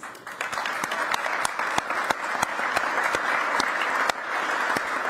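An audience applauding, with a string of louder, sharper single claps standing out from close by.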